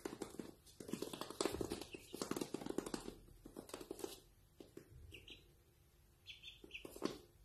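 Ducklings' webbed feet pattering quickly on a laminate floor for about the first four seconds, then a few short, high peeps from the ducklings.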